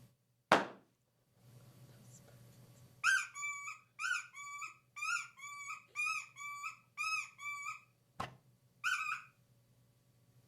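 Foley squeak effect: a sharp hit, then a regular run of pitched squeaks in pairs, about two pairs a second, each pair a higher note then a lower one. Near the end comes a click and one last squeak pair.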